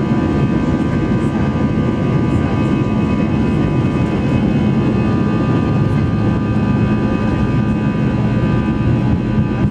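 Airbus A320 jet engines running steadily: a loud, even rumble with several steady whining tones above it.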